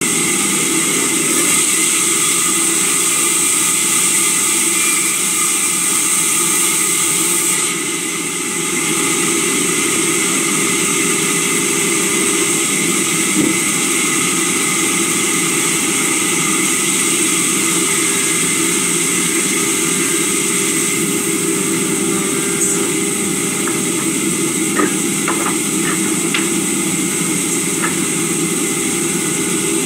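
Sawmill machinery running steadily with a constant hum and whine, dipping briefly about eight seconds in, with a few light knocks of timber being handled near the end.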